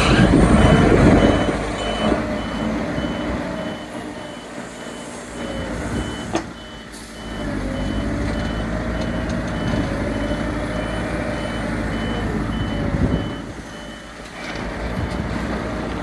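Caterpillar wheel loader's diesel engine running and revving under load, with a reversing alarm beeping steadily through the middle. Near the end the bucket of earth tips into the truck bed.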